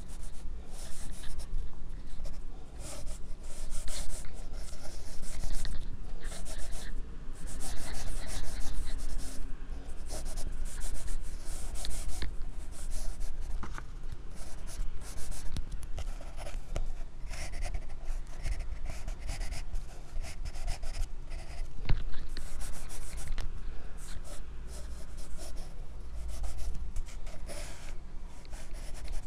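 Graphite pencil scratching across drawing paper in many short, quick strokes of hatching and shading, picked up very close by a clip-on microphone on the drawing wrist.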